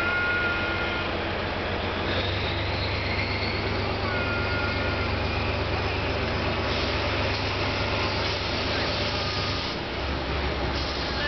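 DE10 diesel-hydraulic locomotive's V12 engine running with a steady low drone as it hauls hopper cars slowly around a curve. The engine note steps up about two seconds in and drops back near the end, and thin high squeals from the wheels on the curve come and go.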